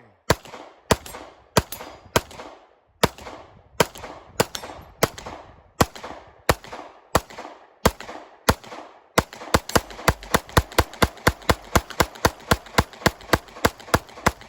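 Glock pistol emptying an extended magazine in one long string of shots. At first they come one at a time, a little over one a second, each followed by a ringing echo. About nine seconds in they speed up to roughly three shots a second of rapid fire.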